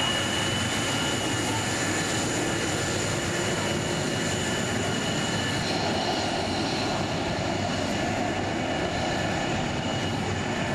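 Fighter jet engines running at taxi power: a steady rush with a high whine held on a few steady pitches, its tone shifting about six seconds in.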